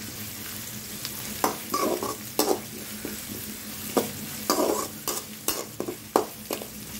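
Chopped shallots, dried red chillies and curry leaves sizzling in hot oil in a metal kadai, stirred with a metal perforated ladle that scrapes and knocks against the pan again and again.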